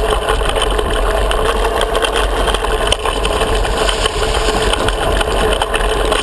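Mountain bike riding a rough trail, heard through a handlebar-mounted GoPro: a steady rush with many small clicks and rattles from the bike's vibration over rocks and roots.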